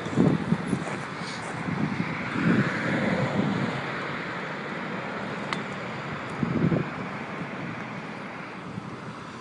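Wind on the microphone over outdoor background noise, with a few low rustling swells and one sharp click about five and a half seconds in. The winch engine is not running.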